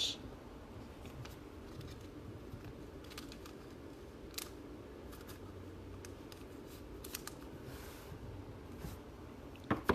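Scattered light clicks and short rustles of trading cards and foil pack wrappers being handled and sorted, over a steady low room hum.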